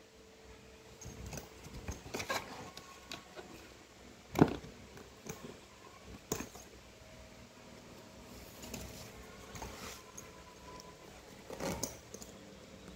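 Hands handling a padded leather-look carrying bag: scattered rustles and light knocks, with a sharper knock about four seconds in and another near the end.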